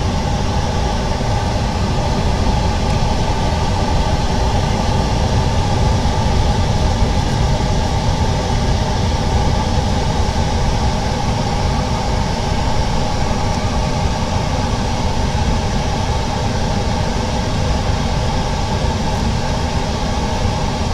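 Steady fan noise, an even hiss over a low hum that does not change.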